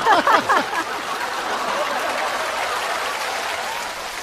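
Studio audience laughing, then applauding steadily. The laughter fades out within the first second, and the applause eases off slightly near the end.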